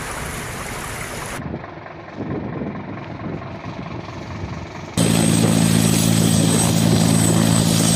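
Rushing floodwater for about a second and a half, then a duller, muffled stretch of noise. From about five seconds in, a rescue helicopter runs loud and steady on the ground, its rotor giving a low hum with a high turbine whine above it.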